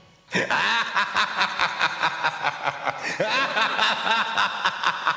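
Drawn-out evil laughter, a rapid string of ha-ha pulses about five a second, beginning suddenly a quarter second in after a brief silence.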